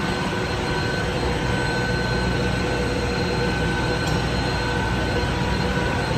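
Steady machine noise: a continuous drone with a high, even whine over it, unchanging in level.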